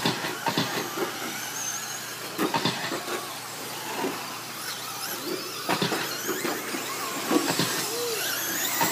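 Electric short-course RC trucks racing on a dirt track: thin, high motor whines rising and falling as the trucks speed up and slow down, over a steady hiss of tyres on dirt, with a few short knocks.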